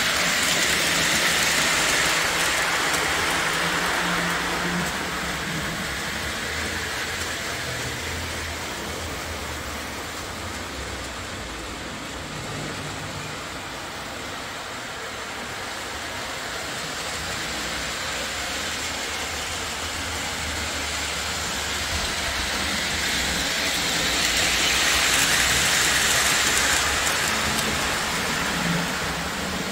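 O gauge three-rail model train running on 027 track: a steady rumble of wheels and motor that fades midway, then grows louder again as it comes back round the layout.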